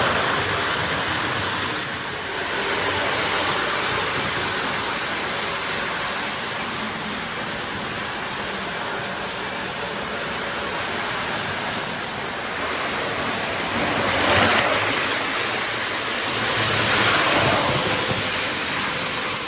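Lionel O-gauge Texas Special model locomotive running on the layout: a steady rumbling whir of its motor and wheels on the track, swelling and easing a few times.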